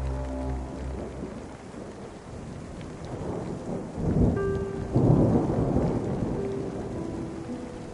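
Steady rain with a long roll of thunder that swells about four seconds in, is loudest around five seconds, and slowly dies away.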